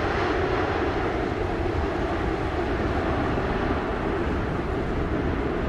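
Jet engines of a Boeing 787 Dreamliner airliner during its landing rollout on the runway: a steady, even rushing noise.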